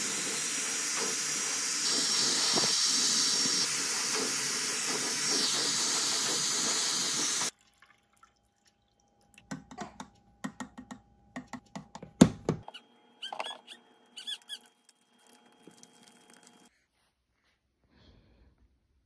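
Dyson Airwrap hair styler blowing air steadily with a faint high whine, cutting off suddenly about seven seconds in. Then light plastic clicks and taps of baby formula being scooped into a bottle, with one sharp knock.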